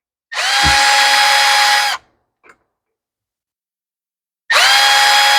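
Small cordless power driver spinning up and running in two short bursts of about a second and a half each, backing out the Phillips screws on a two-stroke trimmer carburetor's fuel pump cover.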